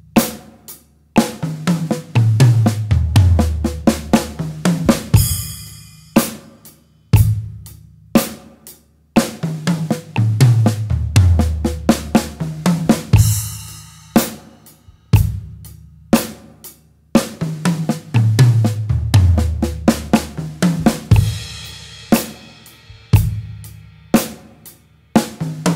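Drum kit played slowly at 60 beats per minute: a bar of a basic beat on hi-hat, bass drum and snare, then a bar-long fill of sixteenth notes in left-right-right groups of three, double strokes on the toms stepping down in pitch, resolving on a crash cymbal. The two-bar pattern comes round about every eight seconds, with crashes about 5, 13 and 21 seconds in.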